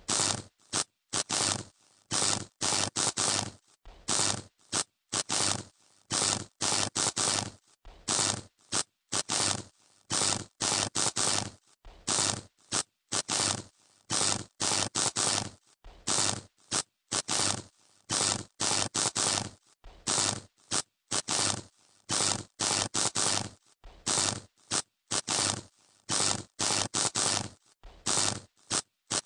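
Electrical short circuit arcing: a harsh crackling buzz with a mains hum in it, cutting in and out in rapid, irregular bursts.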